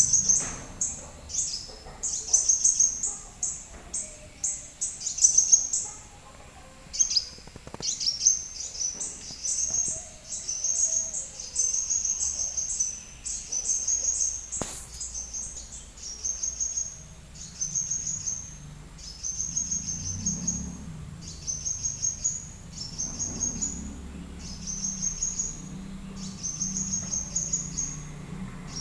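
Small songbird calling a short, high-pitched chirping phrase over and over, about once a second.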